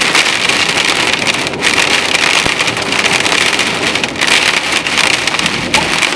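Heavy hail shower: a dense, steady clatter of hailstones pelting the ground and nearby surfaces.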